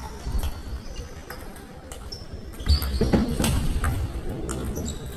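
Table tennis ball clicking sharply and irregularly off bats and table, with short high squeaks between the clicks. A louder burst of noise comes about three seconds in.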